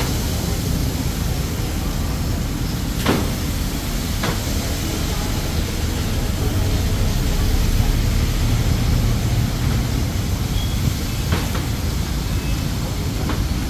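Steady street noise with a low traffic rumble and an even hiss, broken by four sharp clicks, two a few seconds in and two near the end.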